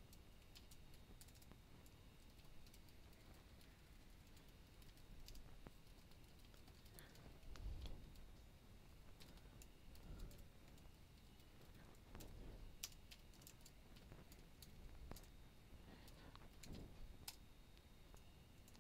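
Faint computer keyboard typing: scattered, uneven key clicks as a line of code is entered.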